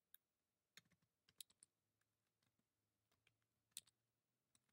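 Faint, irregular keystrokes on a computer keyboard: a search being typed in. The clicks come in a small cluster about a second in and a few more near the end.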